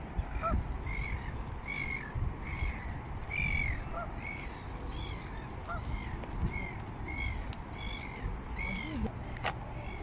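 A bird calling over and over in short, harsh calls, roughly one and a half a second. Another bird gives a lower call now and then, over waterbirds on a lake.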